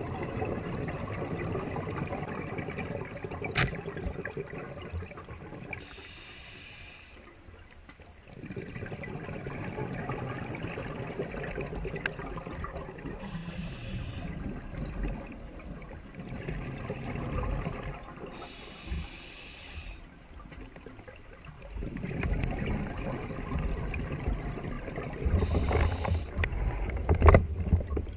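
Scuba regulator breathing heard underwater: long, rushing exhalations of bubbles alternate with short hissing inhalations, about four breath cycles. A couple of sharp knocks are heard, the loudest near the end.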